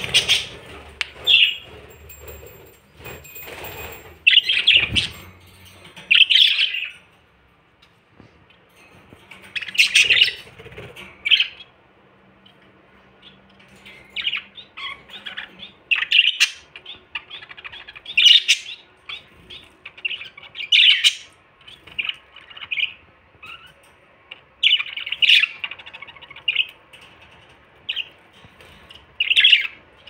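Caged budgerigars chirping and squawking: many short, irregular calls, a few of them louder, with brief lulls in between.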